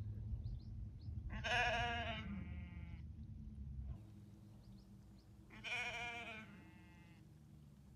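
Sheep bleating: two long calls, each about a second long with a wavering pitch, one about a second in and another about six seconds in.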